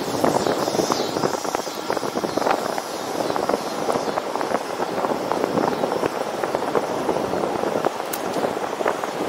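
Steady rush of wind buffeting the microphone of a camera riding along on a bicycle at speed, with rapid crackling throughout.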